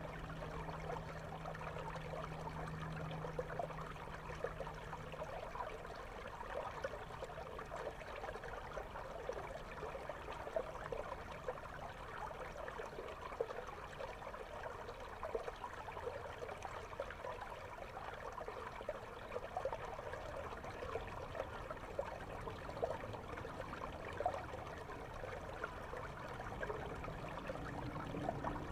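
Clear river water flowing over a stony bed, heard through a camera microphone underwater: a steady wash scattered with many small clicks and pops.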